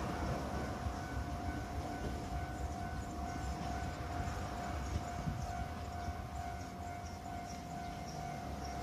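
Railway level-crossing alarm ringing steadily, one held tone with a quick repeating beat, stopping at the very end.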